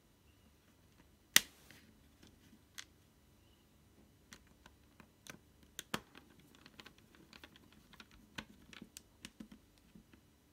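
Small screwdriver working a screw in a netbook's metal frame: scattered light metallic clicks and ticks, coming thicker in the second half, with one sharp click about a second and a half in.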